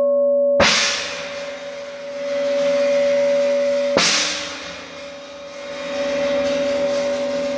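Cymbals struck twice, about three and a half seconds apart, each crash washing out slowly, over a steady two-note ringing tone that sustains underneath.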